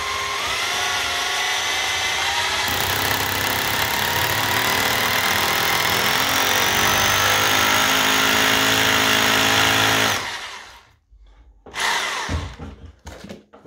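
Makita SDS hammer drill with a 10 mm bit, set to hammer action, drilling a fixing hole into the wall for a wall plug. It runs steadily for about ten seconds, then winds down. A brief burst of noise follows near the end.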